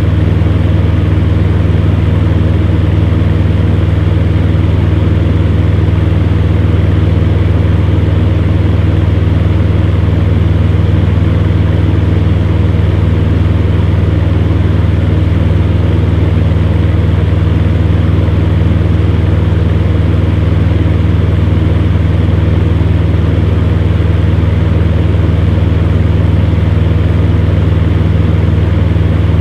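Electric fan heater running steadily: a strong, even low hum with a few steady tones over the rush of the fan's air, with no change throughout.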